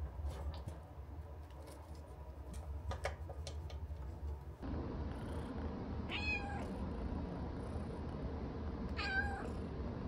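A young Minuet kitten meows twice, about three seconds apart: two short, clear meows that rise and fall in pitch. Before them come a few light taps.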